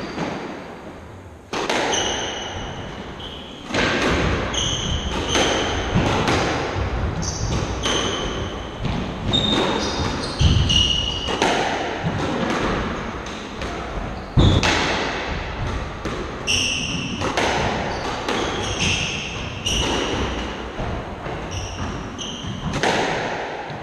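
A squash rally: the ball cracking off rackets and the court walls about once a second, starting about a second and a half in, with sharp squeaks of players' shoes on the wooden floor between shots.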